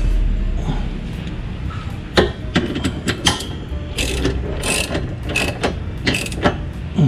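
Socket ratchet wrench clicking in short, uneven runs as a tow hitch mounting bolt is tightened from under the car. The clicks start about two seconds in.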